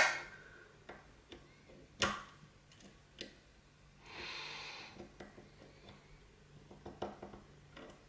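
Sharp metal clicks of lock picks working the levers of a lever padlock, two louder clicks at the start and about two seconds in, then fainter scattered ticks.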